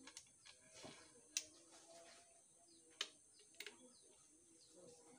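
Faint handling of air-rifle parts during assembly, with two sharp clicks about a second and a half and three seconds in and a small double click just after. Birds chirp faintly in the background.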